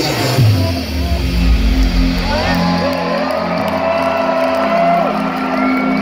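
Loud electronic dance music over a large club sound system, heard from within the crowd. A falling bass sweep opens into held low synth notes, and a high, bending melodic line comes in about two seconds in.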